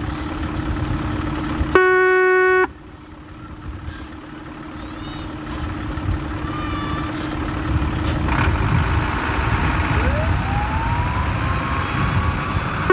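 A fire engine gives one horn blast lasting about a second, about two seconds in, over the rumble of its diesel engine running. Near the end its siren starts to wind up as a rising tone.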